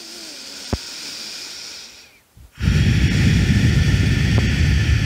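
A person's full, deep breath: a slow, soft inhale for about two seconds, a brief pause, then a long and much louder exhale.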